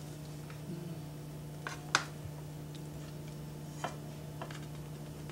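A few light clicks and taps of a slotted spatula against the plate and the skillet, with a sharper tap about two seconds in, over a steady low hum.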